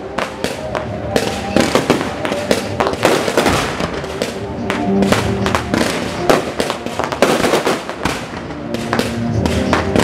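Aerial fireworks display: a dense barrage of shells bursting, many sharp bangs in quick succession, several a second.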